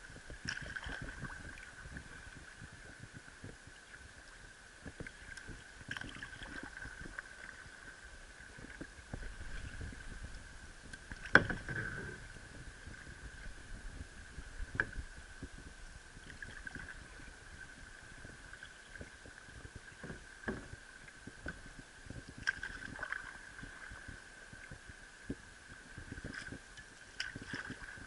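Sit-on-top kayak being paddled through choppy water, heard from a camera on the hull: irregular splashes and water noise from the paddle strokes, with a few short knocks and one loud knock about eleven seconds in. A faint steady high tone lies under it.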